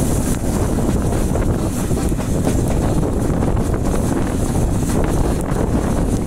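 Steady wind rush buffeting the microphone held out of a moving train's carriage window, with the train's running noise beneath it.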